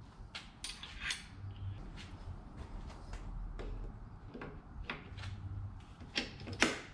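Light metallic clicks and clinks of small steel parts being handled as a cam spacer and an adjustable cam gear are fitted onto the camshaft nose, with a sharper click near the end.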